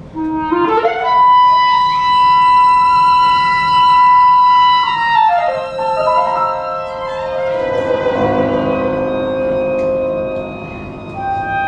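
A violin, cello, clarinet and piano quartet playing contemporary classical music. A quick rising run of notes climbs to a long high held note, which then falls to a lower held note. Low notes enter about two-thirds of the way through.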